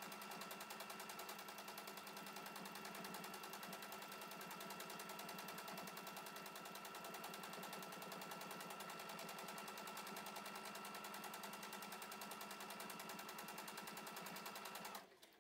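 Sewing machine running fast and steady for free-motion stitching, a rapid even needle rhythm over a faint motor whine; it stops just before the end.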